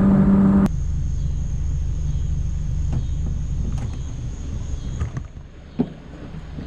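Jet boat engine running at speed, then throttled back suddenly under a second in, leaving a low rumble and wash that fades as the boat coasts. A single sharp knock sounds near the end.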